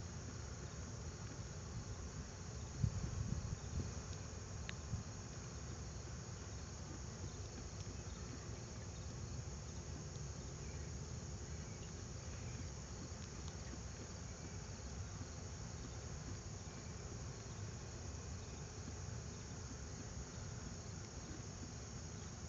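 Steady, high-pitched chirring of an insect chorus, unbroken throughout, over low rumbling noise, with a brief low thump about three seconds in.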